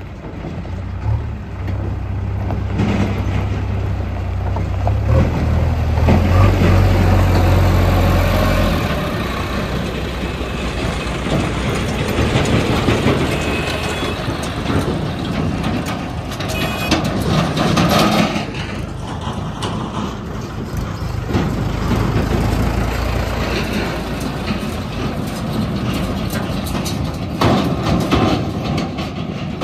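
Diesel engines of a JCB 3DX backhoe loader and farm tractors driving past on a dirt road, loudest in the first several seconds as the backhoe passes. Near the end a tractor pulling a loaded trolley rattles past.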